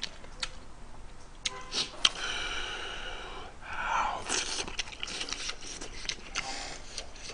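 A person slurping ramyeon noodles off chopsticks and chewing, with a few light clicks of metal chopsticks on the pot early on. There is a long slurp with a thin pitched tone about two seconds in, and a second, noisier slurp around the middle.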